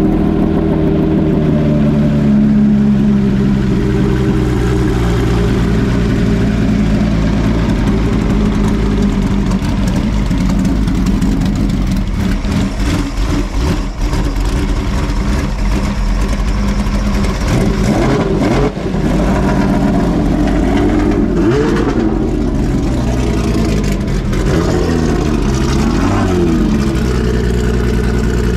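Homemade 5-litre V12 engine idling steadily, its pitch wavering a little in the second half as the revs shift slightly.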